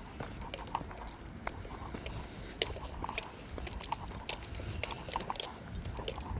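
Small songbirds calling: many short, scattered chips and twitters, over a low rumble.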